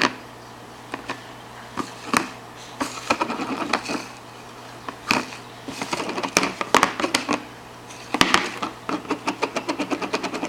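A baby's hands banging and tapping on a hard high-chair surface: scattered knocks, then a quick run of taps, about five a second, over the last two seconds.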